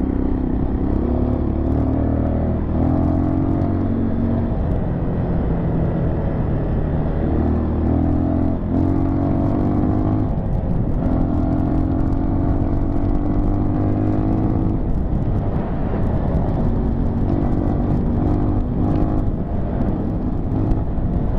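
Dirt bike engine running under way at speed, with a heavy low rumble beneath the engine note. The note holds fairly steady, with several brief dips where the throttle eases and reopens.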